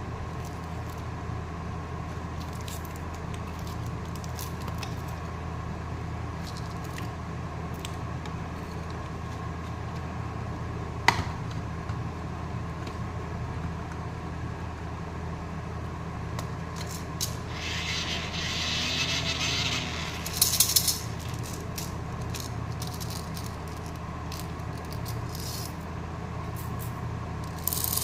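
Candy packaging being handled: small plastic clicks and rattles, a sharp click about eleven seconds in, and a brief rustle followed by a quick flurry of clicks around twenty seconds in, over a steady low hum.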